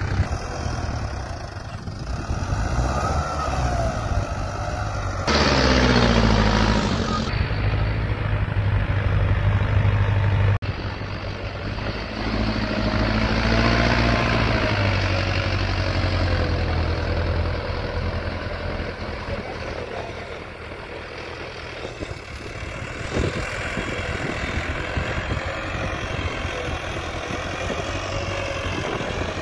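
Mahindra Novo 655 DI 4WD tractor's four-cylinder diesel engine running under load as it pulls a leveler over tilled soil. It is revving up and briefly louder about five seconds in, then settles back to a steady working drone.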